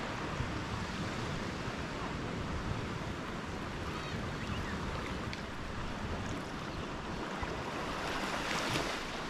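Small waves washing steadily onto a soft sand beach, with one wave breaking a little louder near the end.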